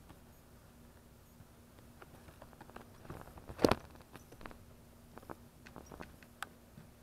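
Young kittens playing on a tile floor: scattered light taps and clicks from paws and toys, with one louder knock a little past halfway.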